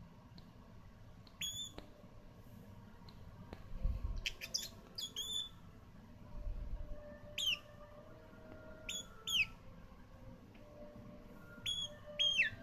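Bourke's parrot chirping: short, sharply falling chirps, some in quick pairs, every couple of seconds.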